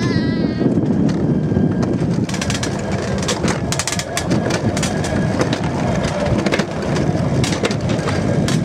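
Alpine coaster sleds rolling fast down a steel tube rail: a steady low rumble of wheels on the track, with rattling clicks from about two seconds in. A brief wavering high cry right at the start.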